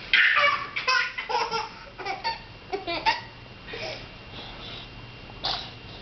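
Baby laughing in a quick run of short bursts for about three seconds, then one more short laugh near the end.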